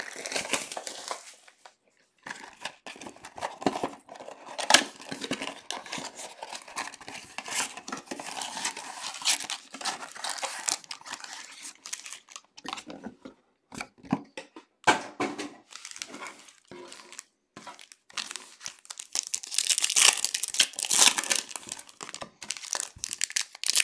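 A cardboard Prizm football-card mega box being opened and its wrapped packs torn and crinkled open, with cards shuffled by hand: a run of crackly ripping and rustling with scattered clicks and taps, busiest near the end.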